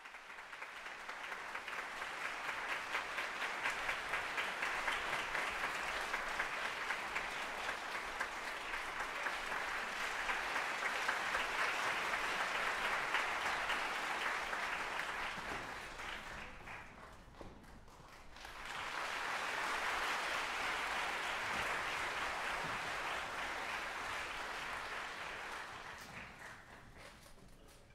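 Audience applauding in a concert hall. The clapping dies down about two-thirds of the way through, rises again a second or two later, and fades out near the end.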